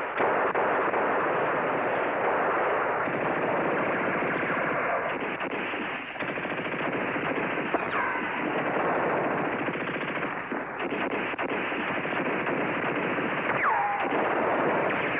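Sustained battle gunfire from a film soundtrack: continuous rapid machine-gun and rifle fire, with two falling ricochet whines, one about halfway through and one near the end.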